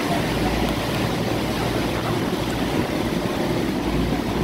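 Small motor tour boat under way: the engine runs steadily while water rushes along the hull, with wind buffeting the microphone.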